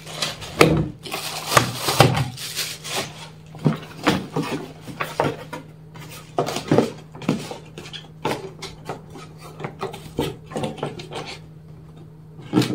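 Cardboard box and packaging being handled: irregular knocks, taps and rubbing as parts are lifted out and the box flaps are folded.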